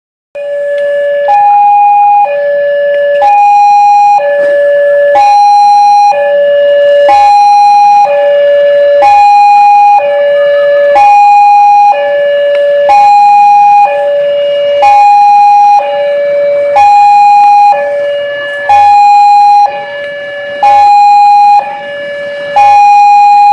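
Railway level-crossing warning alarm sounding: an electronic two-tone signal alternating high and low, one full high–low cycle about every two seconds. It warns that a train is approaching the crossing.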